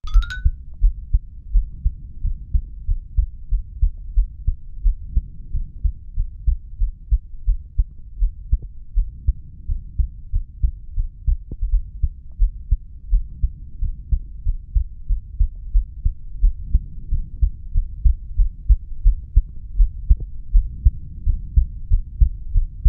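Human heartbeat heard through a stethoscope: steady, regular low thuds repeating evenly.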